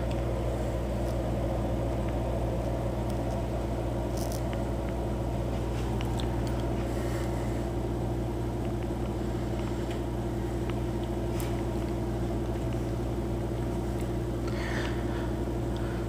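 Keurig Mini Plus single-cup coffee maker running steadily as it heats the water for a brew, a low, even hum with a couple of faint clicks.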